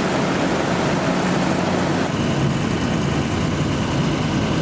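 Idling engines of emergency vehicles: a steady low rumble, with a thin high steady tone joining about halfway through.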